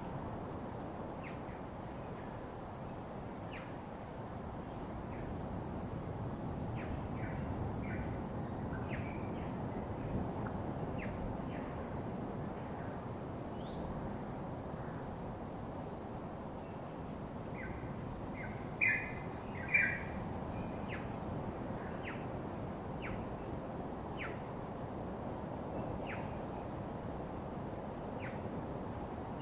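Wild birds in a tropical coastal soundscape giving short, scattered chirps, two louder ones about two-thirds of the way through, over a steady low rush of ambient noise and a thin, steady high tone.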